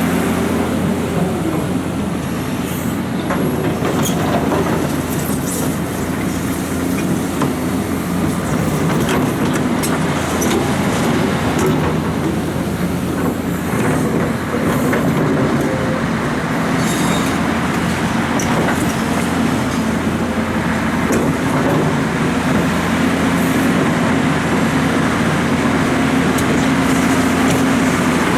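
Liebherr R926 excavator's diesel engine running steadily under working load, with scattered knocks and clanks throughout.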